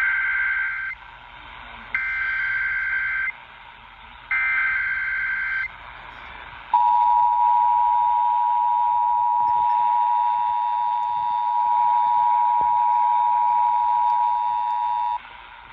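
Emergency Alert System test over AM radio: three short bursts of the SAME digital header, each a raspy warble of about a second and a half, then about a second later the steady two-tone EAS attention signal held for about eight and a half seconds before it cuts off. The narrow AM radio sound leaves all of it thin, with no highs.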